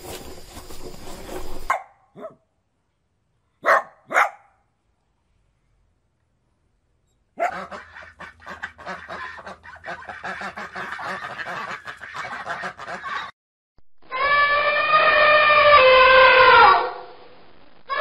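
Greylag goose honking: short calls among separate brief animal sounds with silent gaps between them. The loudest is a long call of about three seconds near the end that drops in pitch as it ends.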